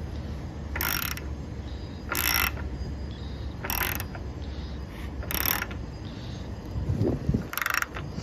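Ratchet wrench clicking in five short bursts, about one every second and a half, as a threaded fitting is turned into a water heater tank, with a knock or two near the end.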